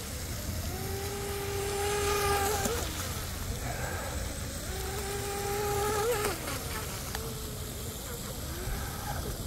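Radio-controlled speed boat's brushless electric motor whining at speed, twice for about two seconds each. Each run holds a steady pitch, then rises briefly and falls away as the throttle comes off.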